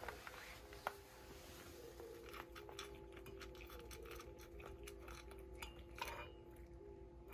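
Quiet, steady hum with scattered faint clicks and ticks, with a couple of sharper clicks about a second in and near the end.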